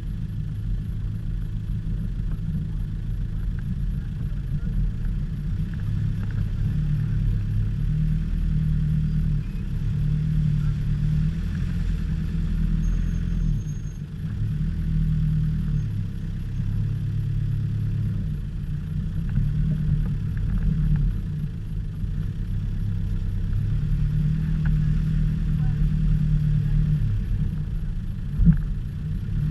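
Land Rover Discovery's engine running at low revs as it crawls over rough, rutted ground, its note stepping up and down with the throttle, heard through the bonnet. A sharp thump near the end as the vehicle jolts.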